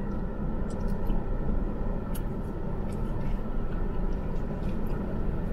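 Steady hiss and low rumble of a parked car's air conditioning running, heard inside the cabin, with a few faint clicks.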